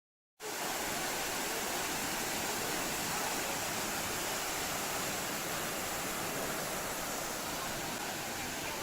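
Steady rush of a waterfall, cutting in from silence about half a second in.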